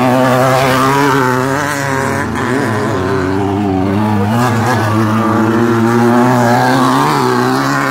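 Off-road race buggy's engine revving as it slides around a dirt-track curve, its pitch wavering up and down with the throttle, over a steady low hum.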